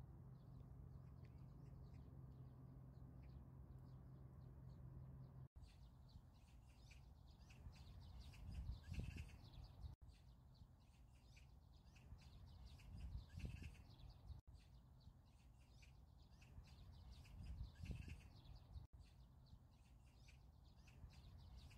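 Faint outdoor ambience: birds chirping, with low gusts of wind. A short stretch of it repeats about every four and a half seconds. For the first five seconds or so there is a steady low hum instead.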